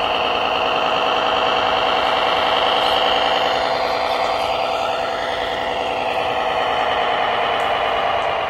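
A radio-controlled model vehicle's drive running steadily under load, with a fast, even knocking pulse and a high whine that sinks in pitch about four seconds in.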